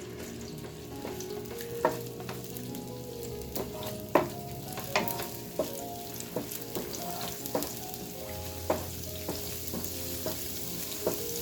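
Chili-garlic sauce paste sizzling as it fries in a hot pan, stirred with a spatula that clicks against the pan every half second to a second, with two sharper knocks about two and four seconds in.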